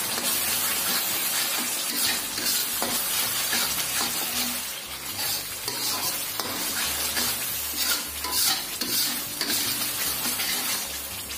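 A metal spatula scraping and stirring thick chili spice paste around a steel wok in repeated strokes, over the steady sizzle of the paste frying in oil. The paste is being sautéed until fully cooked and its water has cooked off.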